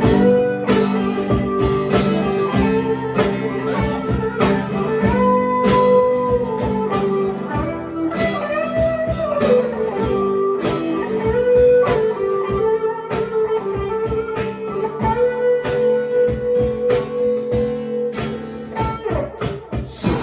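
Instrumental intro of a song played live: guitar keeping a steady strummed rhythm under a held, bending lead melody.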